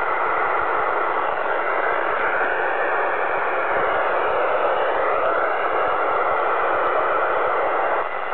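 CB radio receiver hissing with steady band noise through its speaker, squelch open between transmissions. A faint whistling tone dips in pitch and comes back up about halfway through.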